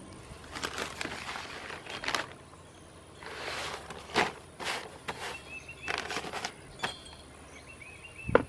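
Clear plastic sheeting crinkling and rustling in repeated bursts as it is draped and smoothed over an upturned pot, with one sharp knock near the end.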